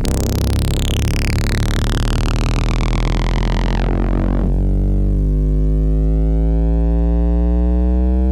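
Arturia MiniFreak synthesizer holding a loud, deep sustained note. It opens bright and noisy with a sweep falling through it, turns dark about four seconds in, and leaves a low drone with a slow sweep that rises and falls.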